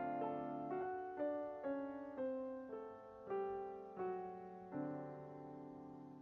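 Background piano music: single notes and chords struck about every half second, each ringing and fading.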